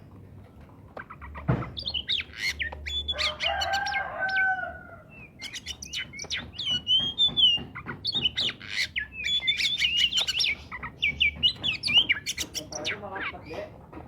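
Oriental magpie-robin singing a loud, varied song of quick whistled phrases and sharp clicking notes, with brief pauses between bursts.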